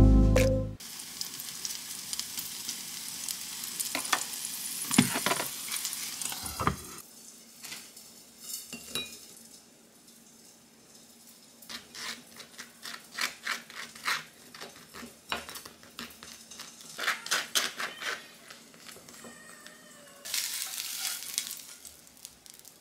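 Food sizzling in a frying pan for the first several seconds, then a run of short scrapes and clicks as a spoon spreads condensed milk over toast on a plate. Near the end there is a brief second stretch of sizzling as a wooden spatula slides a fried egg out of the pan.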